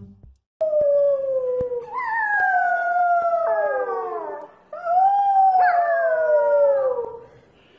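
A corgi howling: two long howls, each sliding slowly down in pitch, with a short break about halfway through.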